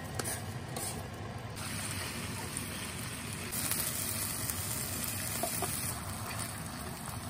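Chicken pieces sizzling as they fry in a frying pan, a steady sizzle that grows louder for a couple of seconds near the middle.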